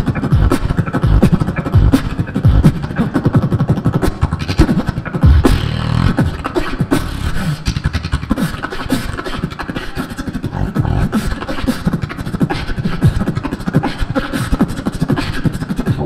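Solo beatboxing into a handheld microphone: a fast, continuous stream of vocal percussion with deep bass hits and sharp clicks.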